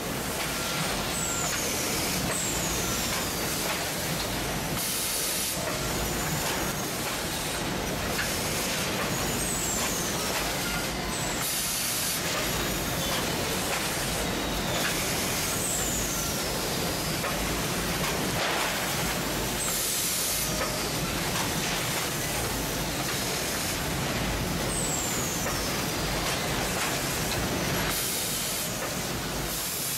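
Citrus net bagging and welding machine running: a steady mechanical noise, broken four times by a short loud hiss of released air, with brief high falling whistles in between.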